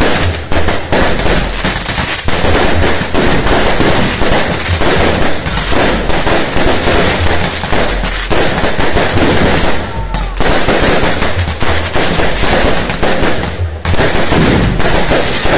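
Firecrackers and fireworks going off in a loud, dense barrage of rapid bangs, almost without pause, with two brief lulls about ten and fourteen seconds in.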